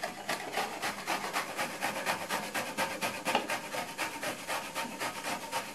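Raw mango being grated by hand on a stainless steel grater: a quick, even run of rasping strokes, about five a second.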